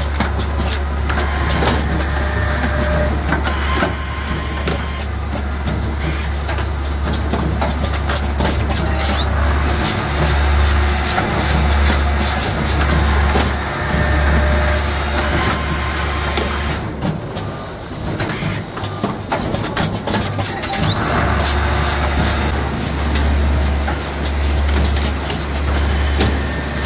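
Automatic armature assembly machine for fitting rotor-shaft insulation sheaths and commutators, running: pneumatic cylinders and fixtures clack and click over and over above a steady low machine hum. The hum drops out for a few seconds past the middle, then comes back in short on-off pulses near the end.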